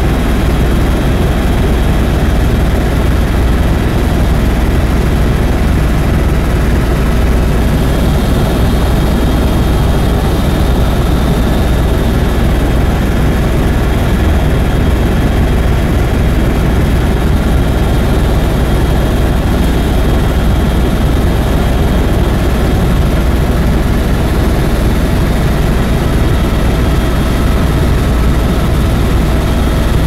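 Helicopter in flight heard from inside the cabin: engine and rotor running at a steady, loud drone with a strong low rumble and a faint, steady high whine.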